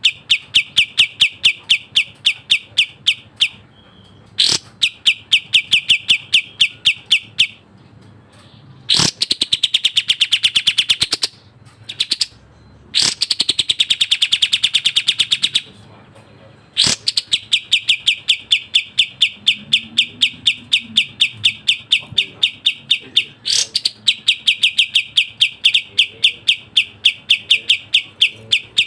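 Kapas tembak bulbul singing its fast, tightly packed song: long trains of sharp, evenly repeated high notes, about four or five a second, broken by brief pauses. Twice in the middle the song turns into a denser, fuller burst.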